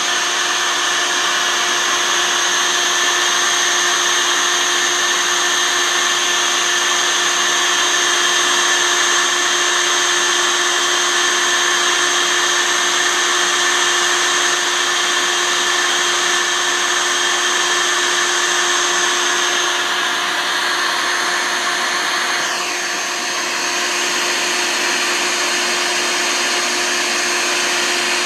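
Bee vacuum motor running steadily while a honeybee swarm is sucked off a branch. About twenty seconds in its pitch sags briefly and the level dips slightly, then it recovers.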